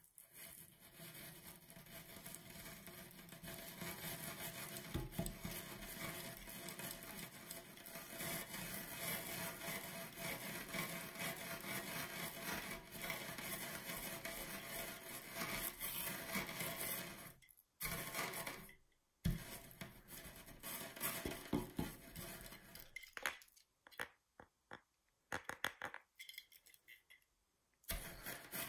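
Brown granules crackling and grinding as they are crushed under the base of a Pennywise head knocker figure. The grinding runs on without a break until about 17 seconds in. After that it comes as short separate crunches with pauses between them.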